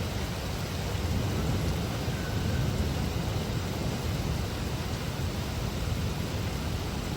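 Heavy rain falling in a steady hiss, with a steady low rumble underneath.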